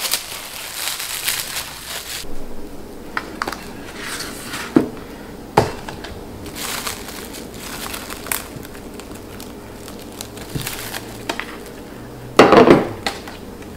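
Plastic cling wrap crinkling as it is peeled back and handled around a ceramic dish of frozen ice cream, with scattered small clicks and a brief louder noise near the end.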